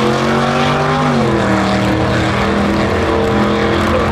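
Two V8-engined 1957 Chevrolet gassers at full throttle down a drag strip. Their pitch climbs, drops sharply about a second in as they shift gear, then climbs again.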